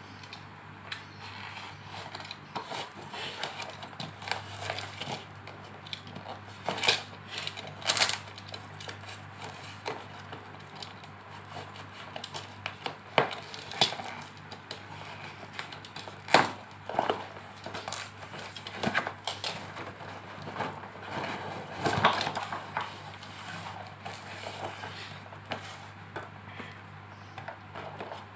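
Cardboard and packing tape being torn and crumpled by hand while unwrapping a parcel: irregular rustling with sharp rips and knocks scattered throughout, several of them loud. A faint steady hum runs underneath.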